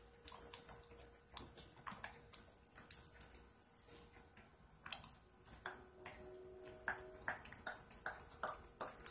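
Spatula stirring thick, lumpy hot-process soap batter in a ceramic crock pot: irregular soft wet smacks and clicks against the crock.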